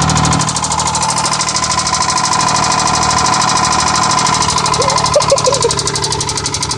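Car engine idling with a loud, rapid, even knocking from the bottom end: the sign of a badly worn connecting-rod bearing, though the owner hopes it is only upper-end (valvetrain) noise.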